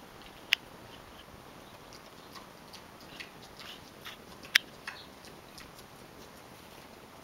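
Pot-bellied pig eating from a plastic bowl: scattered small clicking and crunching sounds of chewing and of the snout working in the bowl, with two sharper clicks, one near the start and one past the middle.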